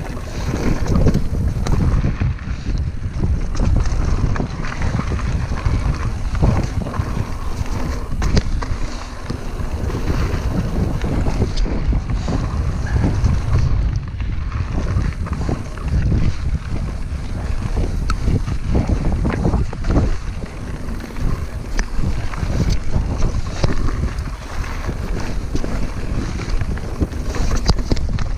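Mountain bike rolling down a rocky gravel trail, with wind buffeting the camera's microphone as a heavy low rumble. Frequent short clicks and knocks come from the bike jolting over rocks.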